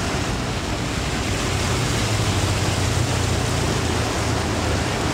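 Heavy rain pouring down in a steady hiss, with the low hum of motorcycles passing close on the wet road, strongest in the middle.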